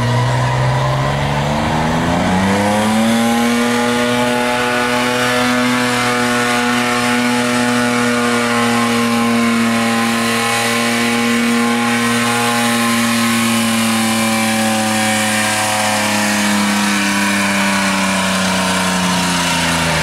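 Holden Commodore wagon's engine revving up over the first few seconds and then held at high revs through a burnout, its rear tyres spinning and smoking against the track. Near the end the revs fall away.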